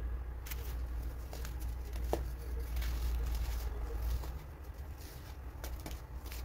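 Fingers crushing and crumbling baking soda lumps in a heap of powder: scattered soft crunches and crackles. A low steady hum runs under it and stops about two-thirds of the way in.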